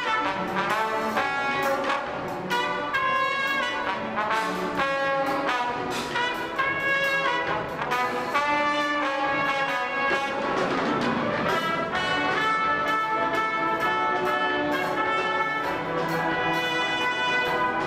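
Live orchestra playing, with the brass section (trumpets and trombones) prominent over the strings, in short rhythmic chords with percussion hits.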